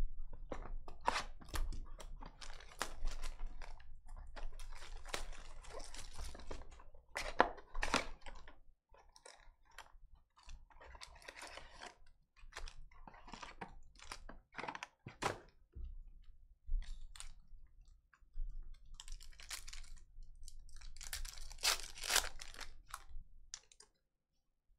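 Trading-card packs and their box being torn open and crinkled by hand: spells of crackly wrapper rustling and tearing, with sharp clicks and taps as the packs and cards are handled.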